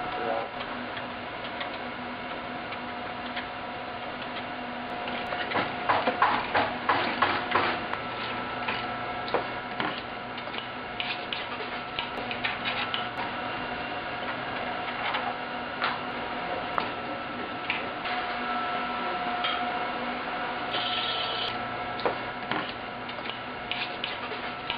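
Hand tools and metal parts being handled during assembly: scattered clicks and clatter, densest about six to eight seconds in, over a steady machine hum with a few held tones.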